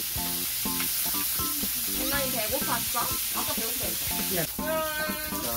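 Meat sizzling on a grill, a steady frying hiss, with background music under it; a child's voice comes in near the end.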